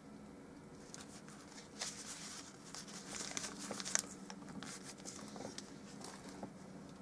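Crinkling and rustling of something being handled: a run of crackly bursts and small clicks from about two seconds in, loudest around four seconds.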